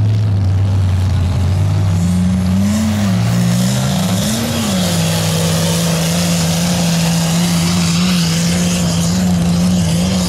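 Lifted diesel 4x4 mud truck's engine running hard through deep mud, its pitch rising and falling twice in the first few seconds and then holding steady under load. A rushing hiss of mud and water spraying from the tyres runs under the engine from about two seconds in.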